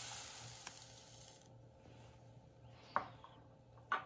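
Ground flax seed poured from a glass cup into a plastic tub of oats, a soft hiss for about the first second and a half, followed by two light clicks near the end.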